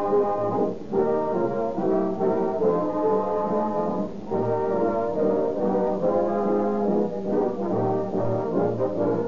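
Orchestral music led by brass, horns and trombones, playing a run of held chords over a moving bass line.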